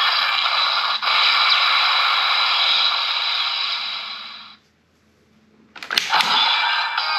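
Electronic sound effects and music from a DX Vistamp toy's small built-in speaker, thin and without bass, fading out about four and a half seconds in. After a short silence come a few sharp clicks, and the toy's sound starts again.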